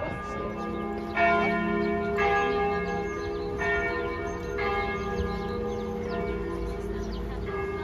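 Church bells ringing: a few bells struck one after another about a second apart, their tones ringing on and overlapping.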